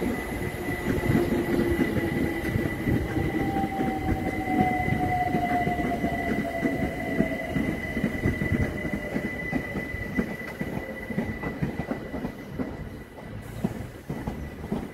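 London Overground electric multiple unit running past on the rails. Its motor whine falls in pitch, a steady high squeal sounds over it, and the wheels clatter over the rail joints. The sound fades over the last few seconds as the train draws away.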